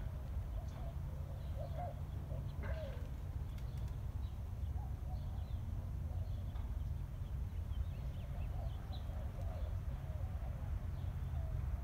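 Park ambience: a steady low rumble with faint birds calling and chirping throughout.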